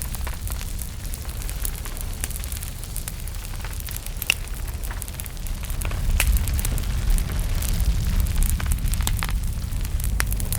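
Small fire burning in a fireplace: irregular sharp crackles and pops over a low rumble of flames, the rumble growing louder a little past halfway.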